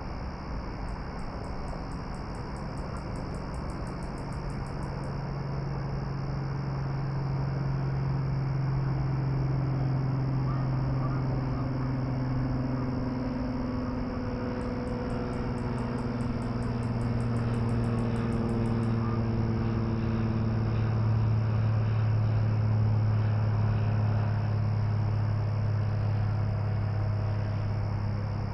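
A distant engine droning, its pitch slowly falling as it swells and passes, over a steady hiss. Twice, a short run of rapid high-pitched ticking.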